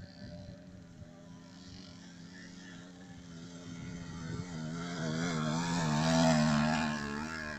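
A 50cc motorcycle engine approaching across a muddy field and passing close by, getting louder up to about six seconds in, its pitch wavering up and down as the rider works the throttle in the mud.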